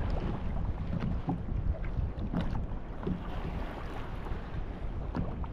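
Wind rumbling on the microphone over water around a fishing kayak, with a few faint knocks.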